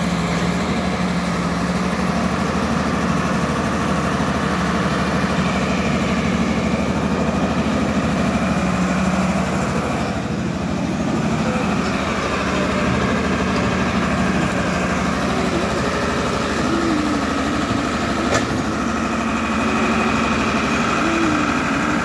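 Caterpillar excavator's diesel engine running steadily at an even speed, with one sharp click late on.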